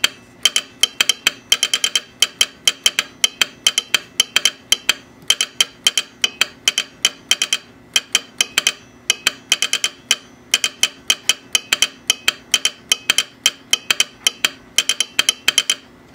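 Telegraph sounder of a Signal Electric learner set clicking out American Morse code, keyed by an Instructograph's perforated paper tape. Sharp clicks come in quick groups separated by short pauses, over a faint steady hum.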